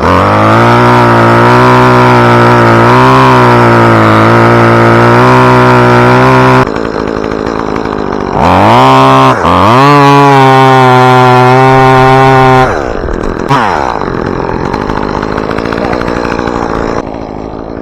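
Gas chainsaw running at full throttle for several seconds, as in cutting, then dropping back, revved up twice and run at full throttle again before it falls back to a lower, quieter speed. The saw is being used to cut the top out of a dead tree.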